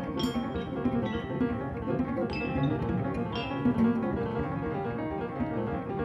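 Freely improvised chamber music for piano, cello and vibraphone. Irregular mallet-struck vibraphone notes ring out over a dense layer of piano and cello.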